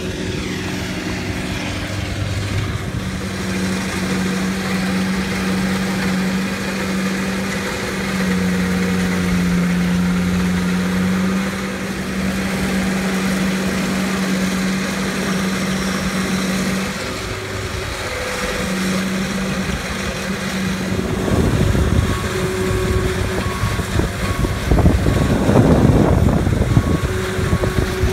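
Stump grinder's engine running steadily. About three-quarters of the way in, rougher, louder rumbling joins it, along with a backup alarm beeping in short repeated beeps.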